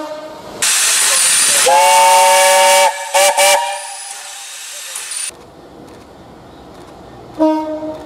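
A steam locomotive's whistle sounds for about a second over a loud hiss of escaping steam, followed by two short toots, and the hiss cuts off about five seconds in. Near the end a diesel locomotive gives a short, low horn blast.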